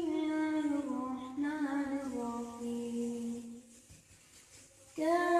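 Solo voice reciting the Quran in a melodic chant. One long held phrase with ornamented turns in pitch drifts downward and settles on a sustained low note, then a breath pause of about a second before the next phrase begins.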